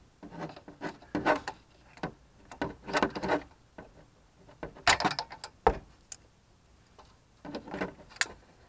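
Hands working the CHS coolant heat storage tank's electric water pump loose from its mount on a 2009 Toyota Prius: irregular clicks, knocks and scraping of the pump housing and fittings. They come in several short clusters, with the sharpest knocks about five seconds in.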